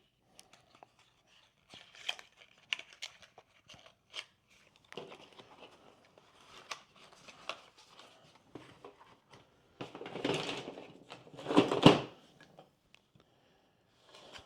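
Hands handling small objects and packaging: crinkling and rustling with scattered light clicks and knocks, and two louder rustles about two-thirds of the way through.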